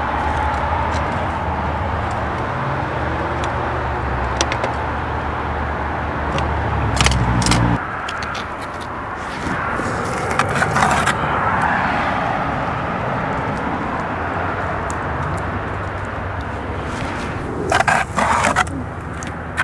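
Trowel scraping and knocking on mortar and bluestone in short strokes, clustered around seven seconds, ten to eleven seconds and near the end, over a steady low hum that stops abruptly about eight seconds in.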